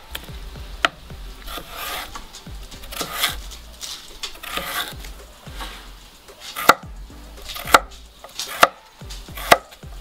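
Broad chef's knife cutting raw beetroot on a cutting board: softer drawn slicing strokes through the beet in the first few seconds, then sharp knocks of the blade on the board about once a second as it dices.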